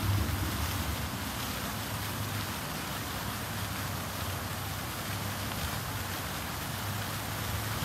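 Small fountain jets spraying into a shallow pool: a steady hiss of splashing water, with a low rumble underneath.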